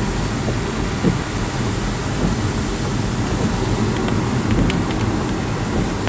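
Steady road noise inside a moving car: tyres on a wet road and a low rumble from the car, with a few light knocks.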